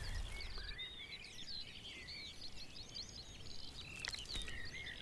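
Several songbirds singing at once, a dense chorus of short overlapping chirps and whistles, with a brief sharp click about four seconds in.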